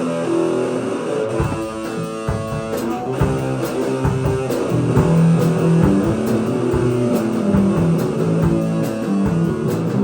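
Live rock band playing an instrumental intro: electric guitar with bass, the drums coming in with a steady beat about a second and a half in.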